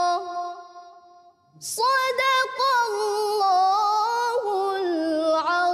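A woman's melodic Qur'an recitation (tilawah): a long held note fades out about a second in, then after a quick breath a new phrase comes in with a wavering, gliding melody that settles onto a long held low note near the end.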